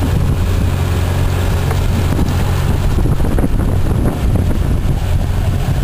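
An engine running steadily with an even low drone, with wind on the microphone.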